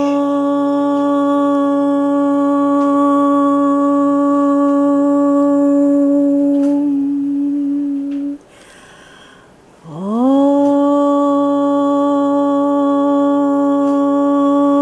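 A human voice humming one long steady note. About eight seconds in it stops for a short breath, then a new hum slides up from below into the same note and holds.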